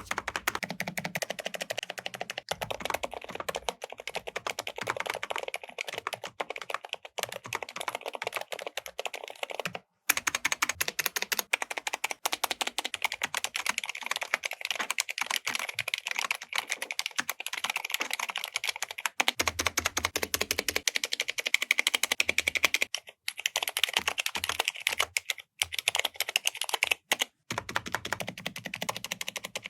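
Fast typing on a mechanical keyboard with Cherry MX switches: a dense, continuous stream of keystroke clicks and clacks. The sound drops out briefly a few times, and the character of the keystrokes changes at about 10 and 19 seconds in, as different switch and keyboard combinations take over.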